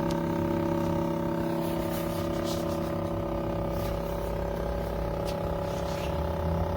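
Steady mechanical hum made of several fixed tones, with a few faint light clicks.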